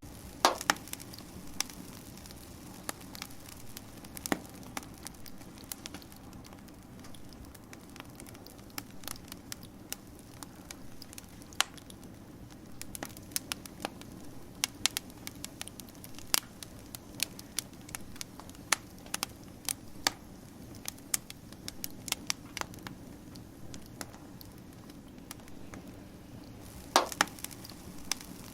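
Wood fire crackling: a steady low hiss under irregular sharp pops and snaps, with a couple of louder pops near the start and near the end.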